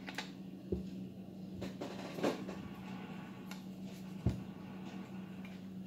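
Scattered clicks and light knocks of a Canon M50 mirrorless camera and its parts being handled and fitted together, the sharpest knock about four seconds in, over a steady low hum.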